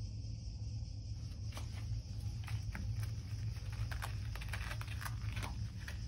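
A cat's paws batting and scratching on a coir doormat: scattered light taps and scratches, several a second, from about one and a half seconds in, over a steady low hum.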